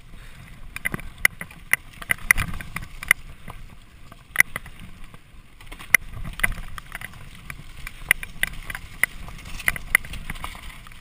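Mountain bike riding fast down a rough dirt trail: sharp, irregular clicks and knocks of the bike rattling over bumps, over a steady low rumble of tyres on the ground.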